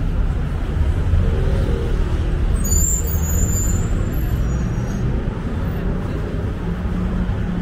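Street traffic with a city bus engine rumbling close by. A brief high squeal and hiss comes about three seconds in.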